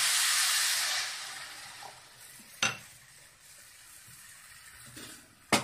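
Water poured onto sugar in a hot pan, sizzling loudly and fading away over about two seconds. A single click follows, and two sharp clicks near the end.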